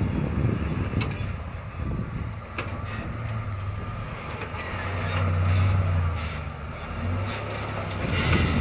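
Lifted pickup truck's engine pulling it slowly up a rocky off-road climb, the engine note swelling louder about halfway through as it works up the rocks. A couple of sharp knocks sound early on.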